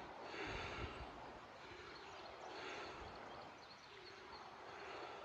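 Faint rushing of a small creek's current running below a culvert, swelling and easing every second or so, with a few low bumps in the first second.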